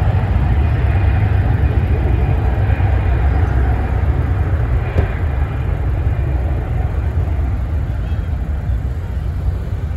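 Delta Airbus A319-114's CFM56 jet engines as it lands: a deep, steady rumble that slowly fades toward the end. A single click sounds about halfway through.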